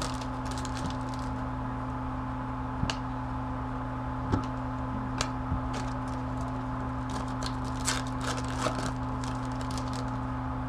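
Hockey trading cards being handled and sorted: scattered light clicks and flicks of card stock, over a steady electrical hum.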